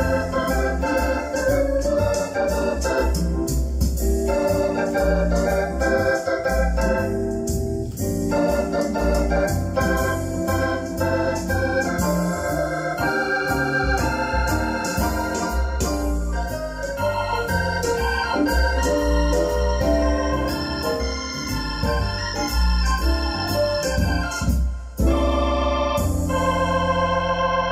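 Electronic keyboard played with an organ sound: chords and a melody over a steady bass line. A little before the end it settles on one long held chord that wavers with vibrato.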